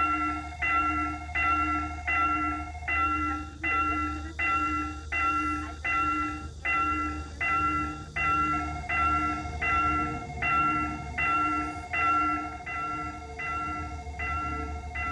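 Railway level-crossing warning bell ringing, an even ding repeated about every three-quarters of a second, while the crossing is closed for an approaching train.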